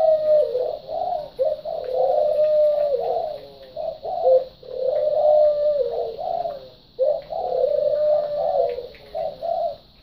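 A pigeon cooing repeatedly: short low coos and longer held coos that drop in pitch at the end, one long phrase about every three seconds.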